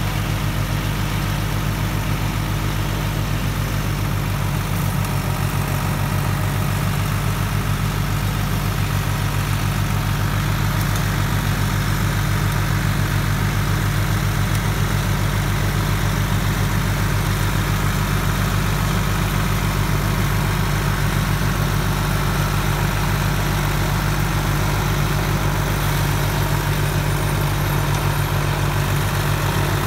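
SAME Frutteto 60 tractor's diesel engine running steadily under load, driving a rear-mounted rotary tiller through dry soil.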